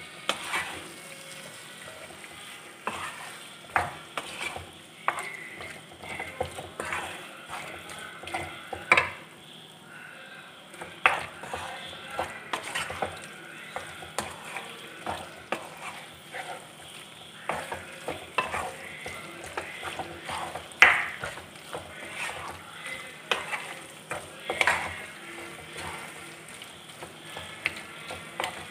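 A wooden spatula stirs and scrapes chicken frying in thick masala paste in a nonstick pan, over a low sizzle. Irregular scrapes and knocks on the pan come throughout, the loudest about nine, eleven, twenty-one and twenty-five seconds in.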